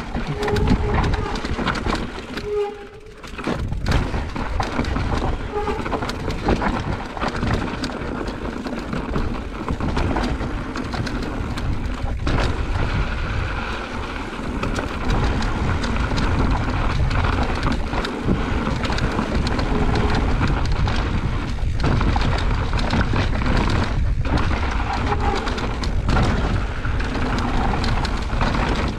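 Wind buffeting the helmet-camera microphone while a mountain bike descends a rocky dirt trail, with the tyres rumbling over the ground and sharp knocks and rattles as the bike hits rocks. It eases off briefly about three seconds in.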